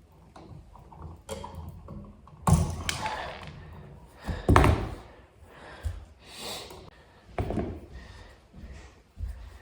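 A series of irregular thumps and knocks from hand work, with scraping and rustling between them; the loudest knocks come about two and a half and four and a half seconds in.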